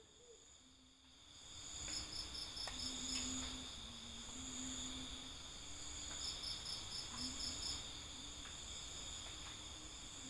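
Night ambience of crickets: a steady high trill with two runs of quick, evenly spaced chirps, fading in over the first second or two, with a faint low hum coming and going underneath.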